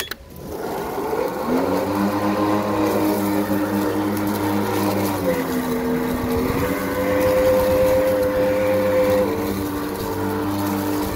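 Greenworks 40-volt battery lawnmower: a click as it is switched on, then the electric motor and blade spin up with a rising whine and run steadily through tall, overgrown weeds. The pitch sags for a second or so in the middle and again near the end as the thick growth loads the motor.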